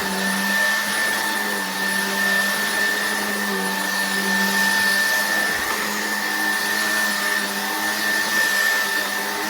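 Shark cordless stick vacuum running steadily, a high whine over a low hum and rushing air.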